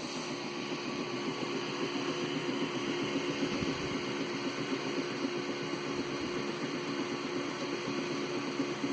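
3D printer running, a steady mechanical hum from its motors and fan with a constant hiss.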